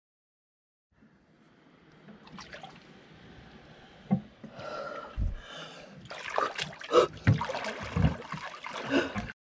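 A swimmer's arms splashing through very cold seawater (about 3 °C), with sharp gasping breaths. It starts faint and the splashing grows louder and more frequent, the loudest splashes coming in the last few seconds.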